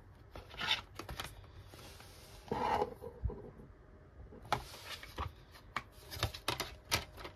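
Hands handling a DVD disc and its plastic DVD case: rubbing and scraping in the first half, then a run of sharp plastic clicks and knocks in the second half as the case is opened and handled.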